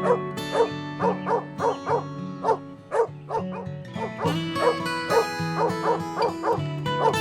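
A small animal giving short, yapping calls over and over, about two or three a second, over background music with sustained notes.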